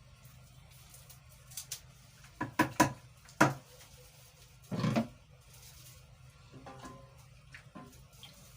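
Several sharp knocks and clicks of containers and utensils being handled, with a longer clunk about five seconds in, over a low steady hum.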